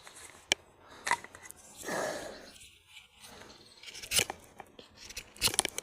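Knife working a wooden stick by hand: a few sharp clicks and snaps with a longer scraping cut about two seconds in, like wood being shaved flat.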